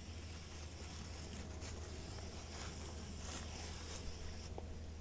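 Aerosol can of marking paint spraying onto grass in a steady hiss that stops about four and a half seconds in.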